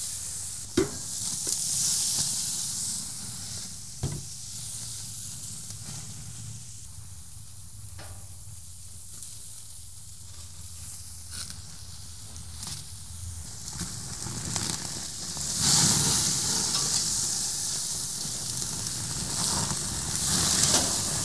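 Marinated flank steaks sizzling as they sear on the hot grates of a gas grill over the flames of its sear burner. The sizzle swells about two seconds in and again in the second half, with a few light knocks in the first half.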